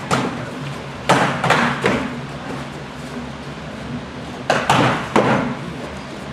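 Sparring weapons striking each other or the fighters' gear in two quick flurries of about three sharp hits each, one about a second in and one past the middle.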